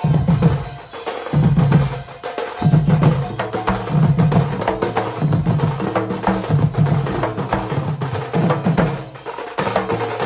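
Ghanta Baja ensemble playing: bell-metal gongs struck rapidly with sticks, ringing over a deep beat that pulses about once a second.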